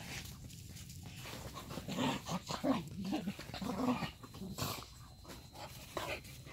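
Dog chewing and gnawing on something held between its paws, with irregular crunching clicks and a few short low growls in the middle.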